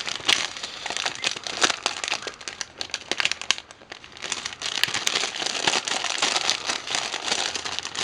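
Clear plastic packaging crinkling and crackling as hands open and handle it, with a brief lull about halfway through.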